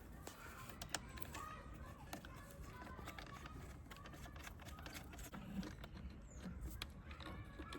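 Faint scattered light clicks and taps of metal parts being handled as a brake master cylinder is fitted onto the brake booster and its mounting nuts are started.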